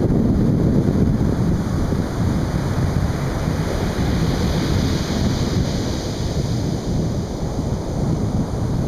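Atlantic Ocean surf breaking and washing on a beach, a continuous heavy wash with a brighter hiss swelling about halfway through, and wind buffeting the microphone.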